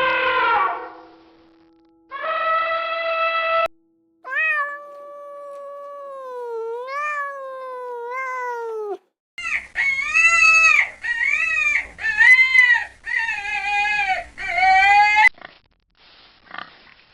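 Cat meowing in a string of separate calls: a short steady meow, then a long drawn-out wavering meow, then a quick run of about seven short meows.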